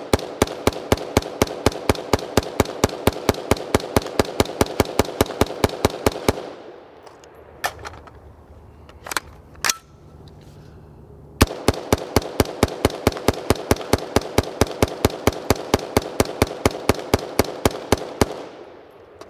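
BCM AR-15 in 5.56 (direct gas impingement) fired rapidly in semi-auto, about five shots a second, in two long strings. Between them is a pause of about five seconds with a few clicks and knocks as the magazine is changed.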